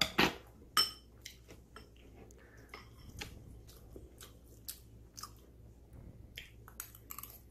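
A person chewing food close to the microphone with the mouth open: wet smacking and clicking mouth sounds at an uneven pace, with two sharper clicks in the first second.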